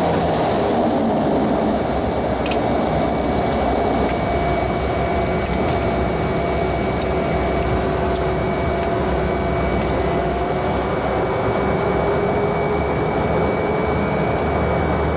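Cessna 208B Grand Caravan's single PT6A turboprop engine and propeller heard inside the cockpit: a steady drone with a thin high whine, and a couple of tones drifting slightly in pitch.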